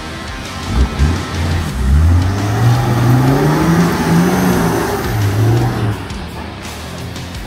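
Nissan Patrol 4WD engine revving hard under load, rising in pitch for a few seconds, then easing off near the end, with background music underneath.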